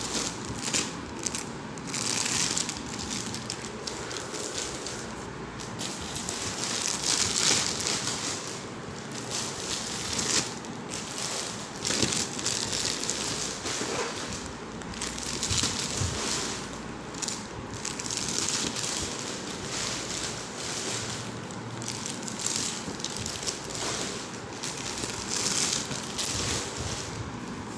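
Irregular rustling and crinkling as sarees and their clear plastic wrappers are handled and shifted, in uneven bursts throughout.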